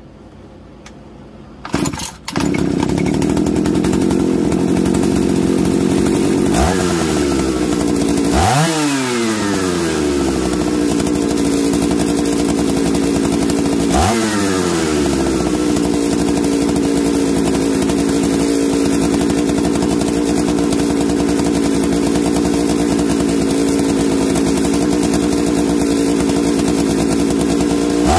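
Husqvarna 480cd two-stroke chainsaw, ported and fitted with a 272xp popup piston, catching and starting to run about two seconds in. It then idles steadily and is revved sharply a few times, each rev falling straight back to idle.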